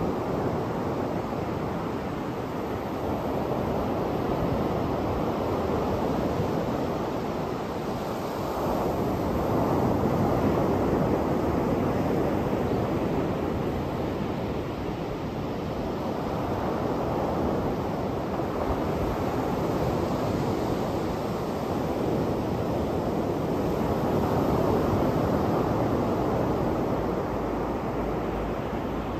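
Ocean surf breaking on a sandy beach: a steady wash of waves whose loudness swells and eases slowly.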